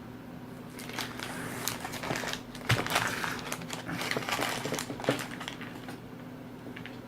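Packaging crinkling and rustling with a few sharp clicks as game components are taken out and handled; it starts about a second in and dies down after about five seconds.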